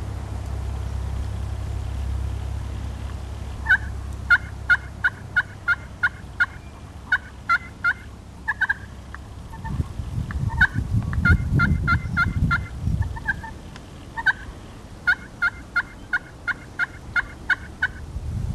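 Turkey yelping: several runs of short, evenly spaced yelps, about three to four a second. A low hum fills the first few seconds, and a low rumble rises briefly around the middle.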